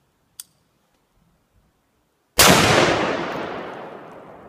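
A brief click, then about two seconds later a single very loud gunshot from an AR-15 rifle. It starts suddenly and dies away slowly in a long, rolling echo.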